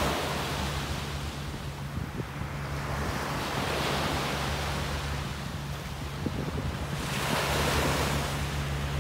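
Small waves washing onto a sandy beach, the wash swelling and fading three times, with wind on the microphone and a steady low hum underneath.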